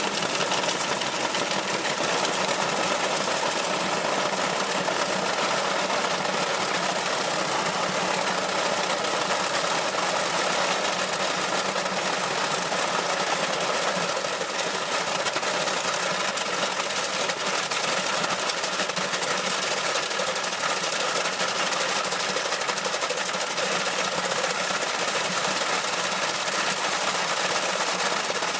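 Washing machine running hard with a steady, fast mechanical rattling and knocking, the sound of the machine shaking itself apart.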